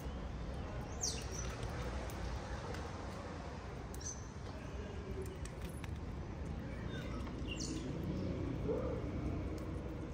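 A bird giving a few short, high chirps spaced a few seconds apart, over a steady low background rumble.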